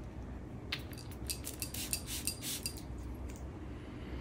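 Small clicks and clinks of a perfume bottle and its cap being handled, a quick run of them lasting about two seconds, starting just under a second in.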